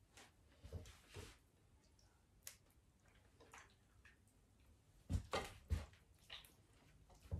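Quiet handling noises of raw lamb ribs being lifted off a plate and laid into a roasting pan of vegetables, with a few soft clicks and two dull thumps a little after five seconds in.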